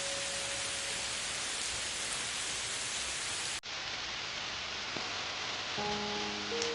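Steady rain noise mixed with soft acoustic guitar music. A held note fades out in the first second, the sound cuts out for an instant about three and a half seconds in, and a few new plucked notes begin near the end.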